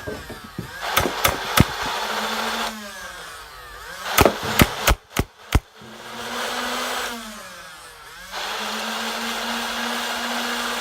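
Battery-powered flywheels of a Nerf Rival Nemesis blaster spinning up with a steady whine and winding down again, three times. During the first two run-ups it fires short bursts of balls, each shot a sharp crack: three shots about a second in, then about five in quick succession around four to five and a half seconds in. The third run-up near the end has no shots.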